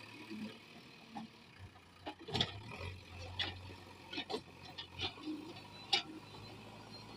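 A faint, steady hum from working diesel machinery, with a string of sharp knocks and clicks over a few seconds, the loudest about two and a half seconds in and near six seconds.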